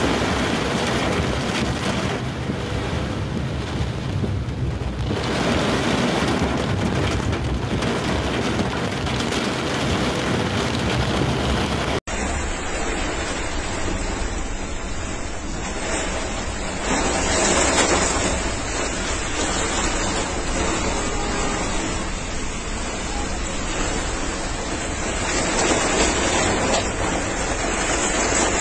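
Cyclone storm noise: strong wind and rushing rain and water, with wind buffeting the microphone. The sound breaks off abruptly about twelve seconds in and carries on with a different recording of the storm, swelling in a few gusts.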